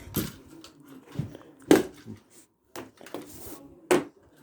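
Three sharp knocks or bangs, spaced roughly two seconds apart, the middle one the loudest, with faint handling clatter between them.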